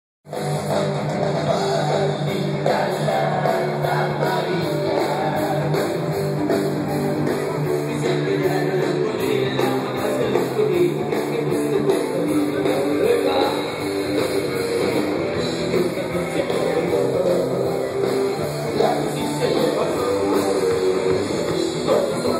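Rock music with singing and guitar playing loud and without a break through a car audio system.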